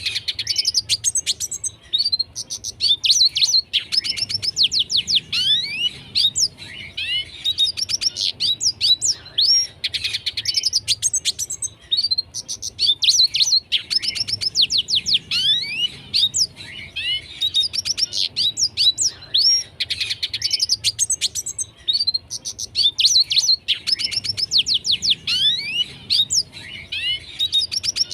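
Red siskin in full song: a continuous, fast run of twittering phrases full of quick downward-sweeping whistled notes.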